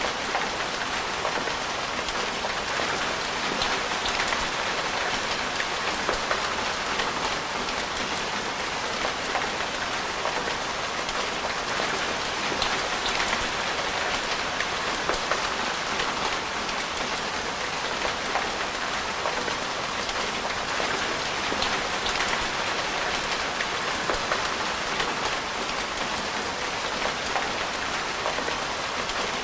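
Steady rain: an even hiss with frequent small ticks of drops striking a surface.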